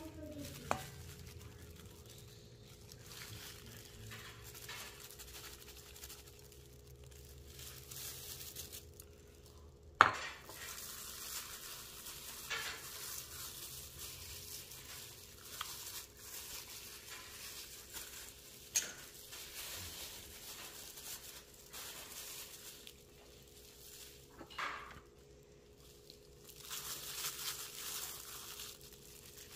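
Quiet kitchen handling as chicken cutlets are breaded by gloved hands: soft pressing and rustling in breadcrumbs and flour, and bowls shifting on the counter. A few sharp knocks of dishes break in, the loudest about a third of the way in. A faint steady hum runs underneath.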